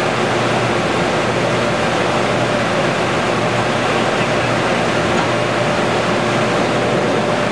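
TS Manufacturing Baby Blu lumber coater running: a loud, steady machine noise that holds level throughout, with no knocks or changes.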